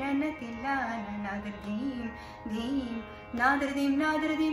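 A woman singing a Carnatic tillana in raga Brindavani, with sustained notes ornamented by sliding gamakas. The melody dips lower in the middle, she takes a short breath just past three seconds, and then she resumes higher. A steady drone sounds underneath.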